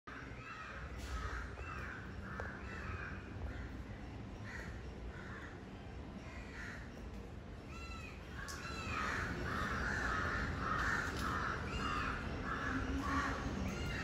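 Birds calling: a harsh, caw-like call repeated in series, louder and more rapid from about eight seconds in, with thin rising-and-falling chirps over it.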